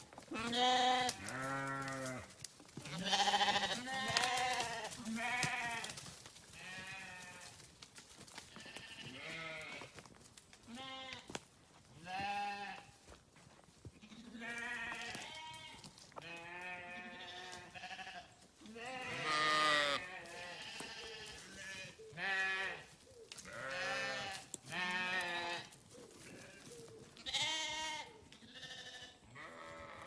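Sheep bleating again and again, a call every second or two. Each call is a wavering bleat of about a second, some voices low and some high, and at times two overlap.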